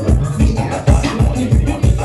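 Loud dance music with a heavy bass beat, about three thumps a second.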